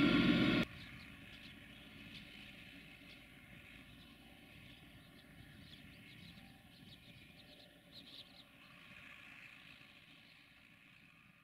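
Belarus MTZ 892.2 tractor's diesel engine running under load while ploughing. It is loud for the first moment, then cuts abruptly to a faint, distant drone that fades out near the end, with faint high chirps over it.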